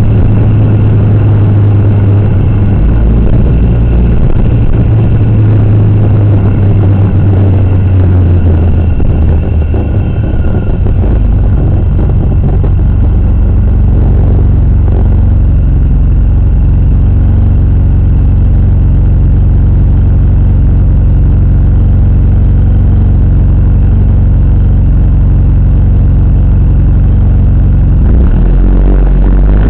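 A vehicle's engine picked up by a dash camera's own microphone. It is running on the move at first, idles steadily from about a third of the way in while the vehicle is stopped, and changes again near the end.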